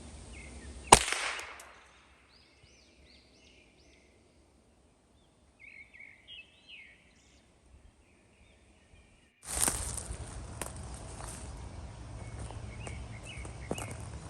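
A single shot from a Ruger 10/22 rimfire rifle about a second in, with a short echoing tail. Birds then chirp in a few short runs of calls. From about nine seconds in, a steady outdoor hiss with small clicks returns abruptly.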